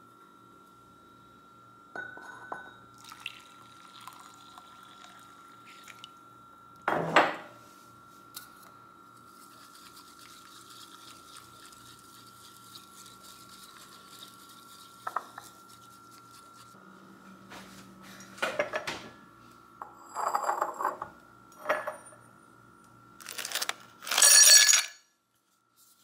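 Kitchen-counter clinks and knocks of ceramic cups, a spoon and glass while an iced drink is made. A soft hiss comes in the middle, and the loudest clatter, ice in a glass, comes near the end. A steady hum runs underneath.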